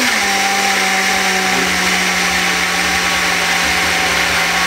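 Electric blender running steadily, puréeing raw potatoes and onion into a smooth, wet mash for potato pancakes. Its motor pitch drops a little right at the start, then holds steady.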